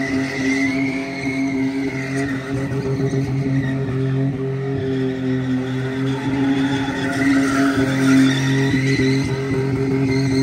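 Truck burnout: the engine is held at a steady high rev while the tires spin and squeal, the squeal wavering in pitch.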